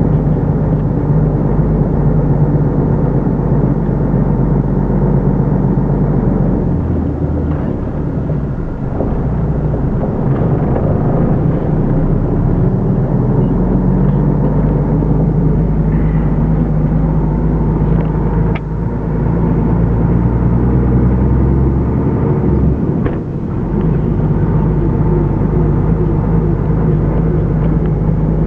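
Renault Magnum lorry's diesel engine running steadily while driving, heard inside the cab. The engine note changes twice, about a quarter of the way in and again about three quarters in.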